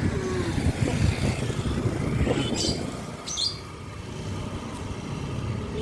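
A motor vehicle engine running on the road, a steady low rumble that swells and eases. Two short high chirps cut through it a little past halfway.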